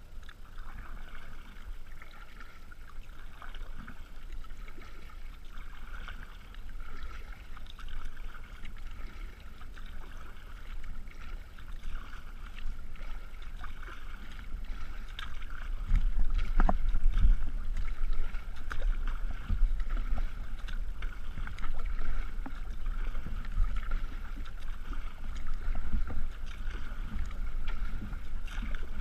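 Sea kayak being paddled on open water: paddle blades dipping and water splashing and lapping against the hull. A low wind rumble on the microphone grows louder from about halfway through.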